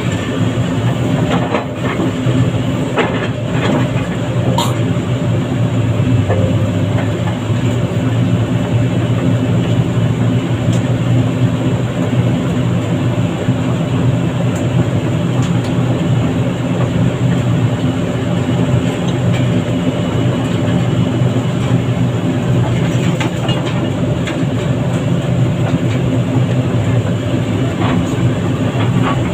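Heavy diesel engine running steadily under load, a low drone, with a few sharp clicks and knocks in the first few seconds.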